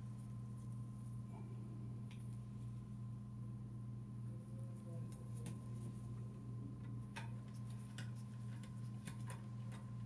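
Light, scattered clicks of a metal Allen key turning screws out of a graphics card's bracket, coming more often in the second half, over a steady low electrical hum.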